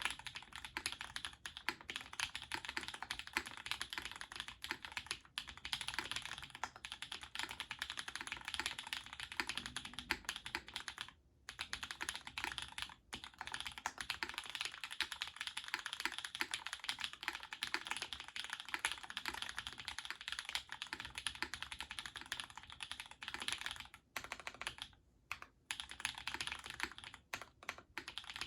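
Continuous fast typing on a Duck Orion v2.5 custom mechanical keyboard fitted with lubed Holy Chicky switches, GMK ASCII keycaps and an FR-4 plate: a dense run of keystrokes, with brief pauses about eleven seconds in and again around twenty-four to twenty-five seconds.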